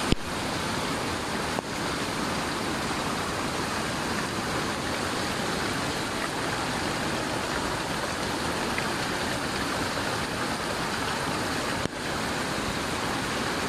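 Muddy floodwater rushing past in a fast torrent: a steady, loud roar of moving water.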